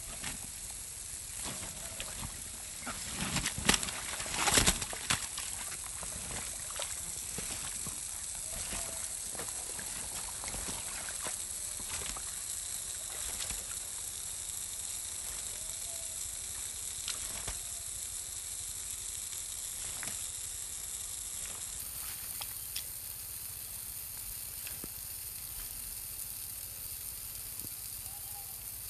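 Komodo dragon shaking a goat kid in its jaws in wet mud: sloshing and wet slapping of mud and water, loudest in a cluster of knocks about three to five seconds in, then scattered small clicks over a steady high hiss.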